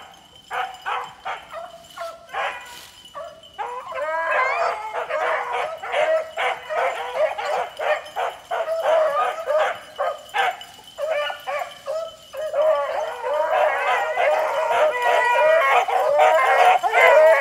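A pack of hunting beagles baying and barking. It starts with separate barks, and about four seconds in several dogs join in with overlapping bays. The cry thins briefly past the middle, then builds again and is loudest near the end.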